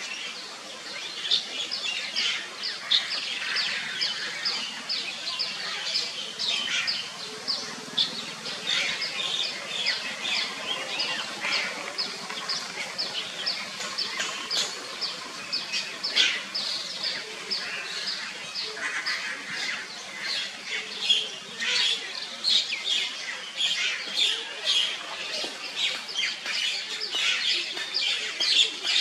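Birds chirping all through, several short high chirps a second.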